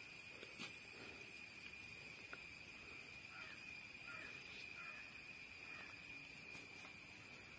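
Faint outdoor ambience with a steady, high-pitched insect drone from crickets or similar insects, and a few faint bird chirps midway.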